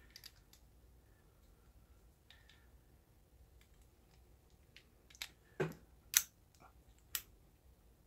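Master Lock trigger lock being handled: faint ticks and rattles of its plastic and metal parts, then four sharp clicks and knocks between about five and seven seconds in as the two halves are snapped together and locked.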